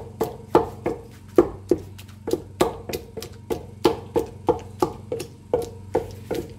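Wooden pestle pounding soft chopped tomatoes and peppers in a wooden mortar, a steady run of strikes about three a second, mashing them into a paste for stew.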